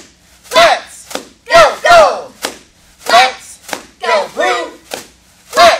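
Cheerleaders shouting a cheer in unison: short, loud chanted phrases of one to three syllables, about one group a second, with a few sharp claps between.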